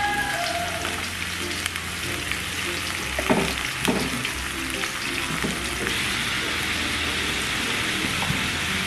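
Shrimp and chopped onion sizzling in hot oil in a nonstick frying pan, stirred with a plastic spatula, with a couple of sharper scraping strokes a little past halfway. The sizzle grows louder about six seconds in.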